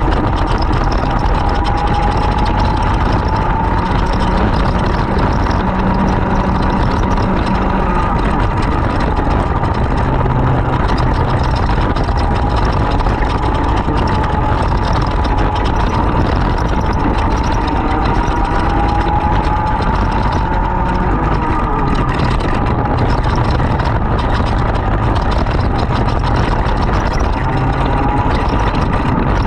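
Two-stroke racing kart engine running hard, its pitch rising as it revs up and dropping back every few seconds as it goes through the laps.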